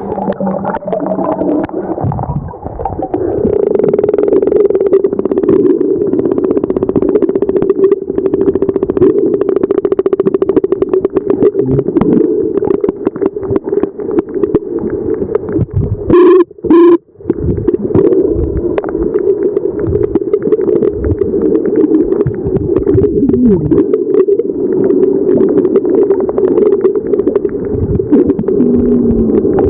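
Sperm whale clicks heard underwater: rapid, dense trains of clicks over a steady low hum. About halfway through, two very loud short tonal bursts stand out, and a brief falling tone comes later.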